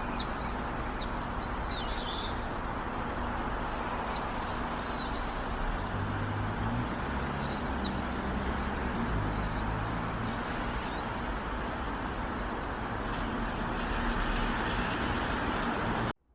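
Small birds chirping in short, repeated calls, thickest in the first couple of seconds and again around eight seconds in, over a steady outdoor background noise with a faint low hum.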